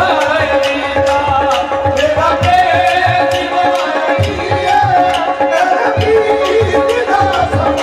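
Qawwali: a lead male voice sings a long, wavering melodic line over a regular tabla rhythm and held steady accompaniment notes.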